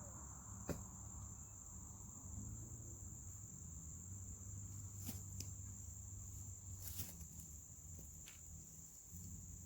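Steady high-pitched trill of insects, crickets or similar, with a few faint sharp clicks scattered through.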